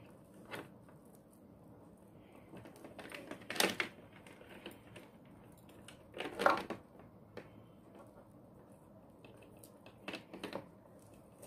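Clear faceted beads clicking and rattling against each other as hands string them onto nylon thread: a few separate short clatters, the loudest about three and a half and six and a half seconds in.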